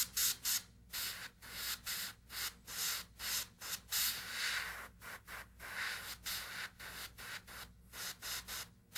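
Airbrush spraying paint in short hissing bursts, about two or three a second, as the trigger is worked on and off to darken a feather on a carving.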